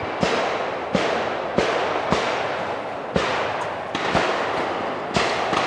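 Gunfire from shooters elsewhere on the range: a string of sharp, irregular shots, roughly one a second, each trailing off in a short echo.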